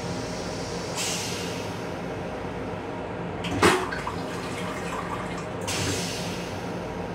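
Flush cycle of a Metro-North M7 railcar's stainless steel toilet, set off by its push-button. A hiss of rinse water begins about a second in, and a short, sharp, loud burst comes about halfway through. A second hiss follows and cuts off suddenly near the end, all over the railcar's steady hum.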